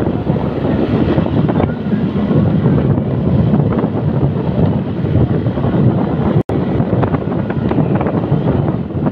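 Wind buffeting the microphone on a moving vehicle, with road and vehicle noise underneath, steady and loud. The sound cuts out for an instant about six and a half seconds in.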